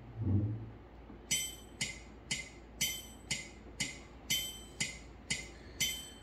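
Electronic keyboard's built-in metronome ticking at about two beats a second, every third tick a brighter accented chime, counting in three-beat bars. A short low note sounds once at the very start, before the ticking begins.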